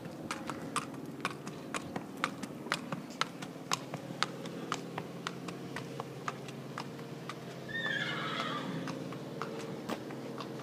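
Shod hooves of a young Thoroughbred colt clip-clopping at a walk on tarmac, about two strikes a second. A short, high whinny comes about eight seconds in.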